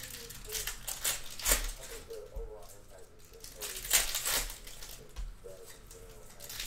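Foil trading-card pack wrapper crinkling and tearing as it is pulled open by hand, with the loudest crinkles about one and a half seconds in and again about four seconds in.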